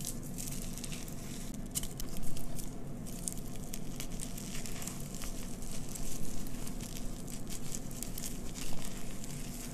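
Hands crushing and crumbling chunks of reformed gym chalk into loose chalk powder: a steady dry, crackly crunching, with louder crunches about two seconds in, around six seconds and near the end.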